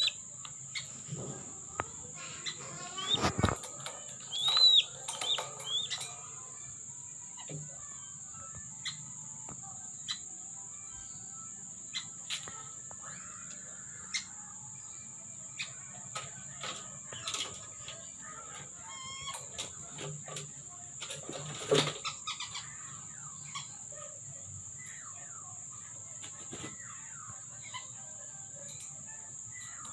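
Whistling ducks (belibis) moving about with wing flaps and scuffling, and a few short high whistled calls in the first several seconds, over a steady high drone of crickets; two sharp knocks stand out, one early and one about two thirds of the way through.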